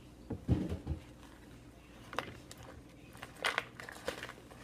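Scattered knocks and clicks of dishes and utensils being handled as food is loaded onto a plate, with a little crinkling.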